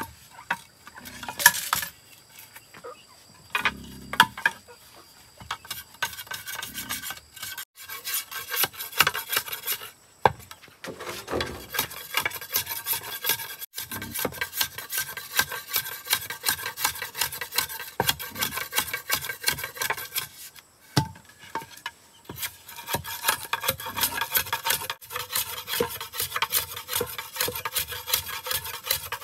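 Hand tool rasping on bamboo in rapid repeated strokes, as in sawing or filing it down, with a few short pauses. There is a sharp knock about a second and a half in.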